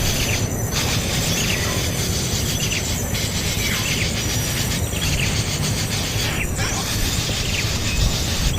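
A bird chirping, short falling calls about once a second, over a steady rumbling background noise.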